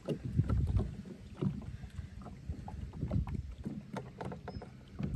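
Uneven low rumble and scattered knocks from a small fishing boat on the water, with wind buffeting the microphone.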